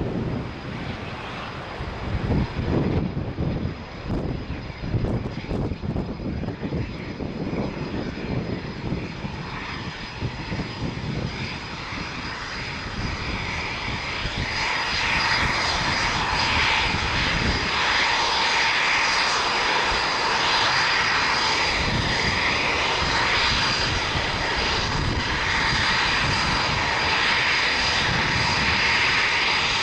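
Eurofighter Typhoon's twin jet engines on the take-off run. A gusty rumble swells about halfway through into a loud, steady roar, with a high whine held over it.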